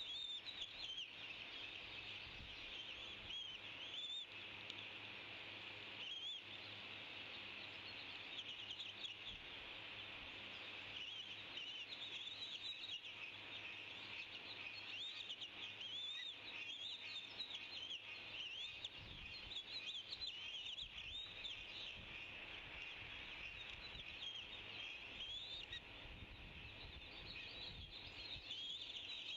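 Eaglet's high-pitched begging chirps, a rapid, almost unbroken run of short rising-and-falling peeps, typical of a hungry chick calling to be fed.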